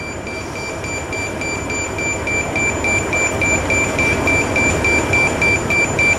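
Emergency pager alert sounding: a rapid train of high electronic beeps, about four a second, over steady background noise. It signals the alerting of the rescue crew.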